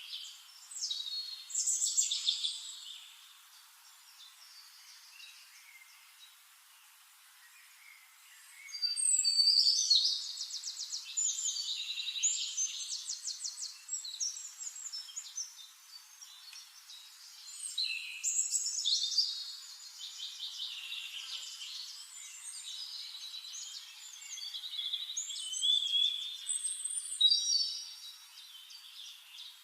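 Bird song: phrases of rapid, high notes and trills, broken by pauses of a few seconds, with the longest and loudest phrase a little under halfway through.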